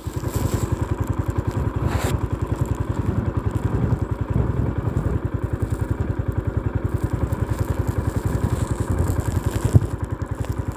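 A motor vehicle driving on a rough road, its engine running with a fast, even low pulsing. There is a sharp knock about two seconds in and another near the end.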